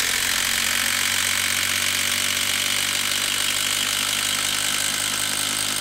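Makita 18V brushless impact driver hammering steadily under load as it drives a two-and-a-half-inch lag screw into a wood stump through a long extension bit.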